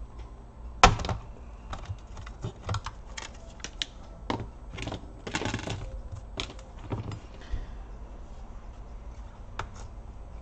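A laptop hard drive in its metal caddy is worked out of the plastic bay of an Acer Aspire 5253 and handled. There is a sharp knock about a second in, then a run of small clicks and taps, with a brief scraping noise in the middle.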